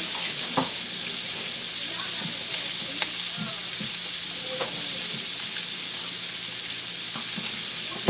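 Sausage links sizzling in a skillet: a steady frying hiss with a few small pops.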